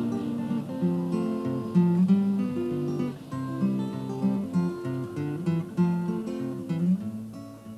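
Acoustic guitar music, a plucked and strummed tune, fading out near the end.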